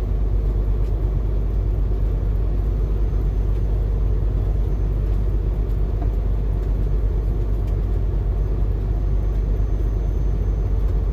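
A steady, unchanging low machine rumble.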